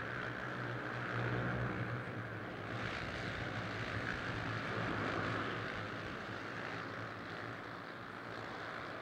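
A pack of Honda CB 300R single-cylinder race motorcycles running hard on track, a steady engine drone that swells in the first few seconds and eases off in the second half.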